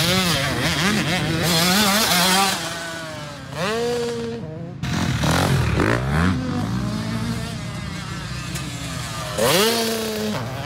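Motocross dirt bike engines revving up and down as the bikes ride the track and take jumps. The sound changes abruptly twice, about five and nine seconds in, each time followed by an engine rising sharply in pitch and then holding.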